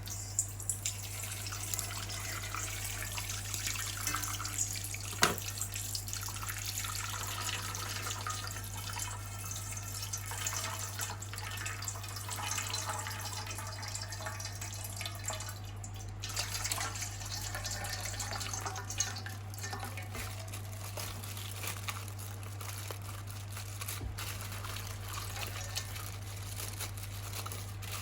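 Tap water running and splashing in a sink, with a sharp click about five seconds in, over a steady low electrical hum.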